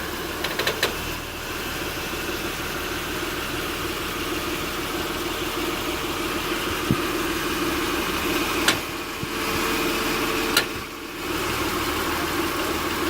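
A 2006 Acura TL's V6 idling in park while the steering wheel is turned, with sharp clicks from the passenger side: a quick cluster of clicks near the start, then single clicks a few seconds apart. The clicking comes from an internally binding steering rack.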